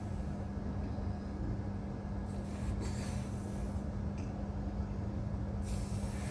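Passenger train moving slowly out of a station, heard from on board: a steady low rumble with a constant hum, and short bursts of hissing about halfway through and again near the end.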